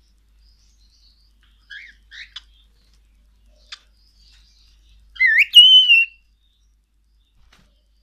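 Cockatiel giving a few soft chirps and short clicks, then about five seconds in one loud whistle that glides up and then holds its pitch for about a second.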